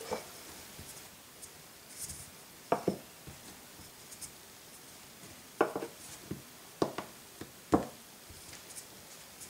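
Kitchen handling sounds: several short, sharp knocks and taps on a work surface, some in quick pairs, against a quiet room.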